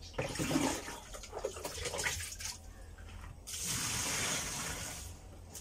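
Water being scooped up with a plastic pitcher and poured by hand into the tub of a twin-tub washing machine to fill it. It splashes unevenly at first, then pours in a steady stream for about two seconds from about three and a half seconds in.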